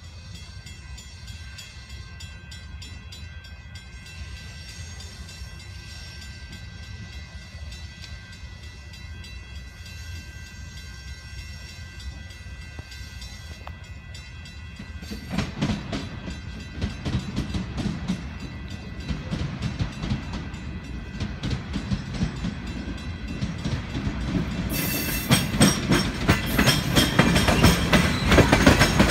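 Union Pacific gravel train of open-top hopper cars rolling past, shoved from the rear by pusher locomotives so only the cars are heard. It grows from a faint rumble to a steady clatter of wheels over rail joints about halfway through, and is louder still near the end as the cars pass close.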